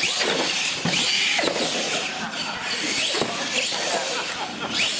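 R/C monster truck's motor and drivetrain whining as it drives on a dirt floor, the pitch rising several times with bursts of throttle.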